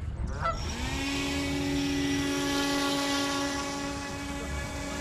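The electric motor of a radio-controlled model boat spins up well under a second in, with a quick rising whine, then holds a steady high whine as the boat runs. A goose honks once at the very start.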